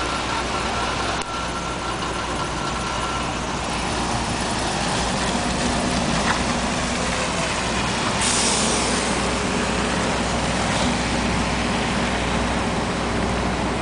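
City street traffic in the snow: a steady mix of vehicle engines and road noise, including a heavy garbage truck's diesel, with a short burst of hiss about eight seconds in.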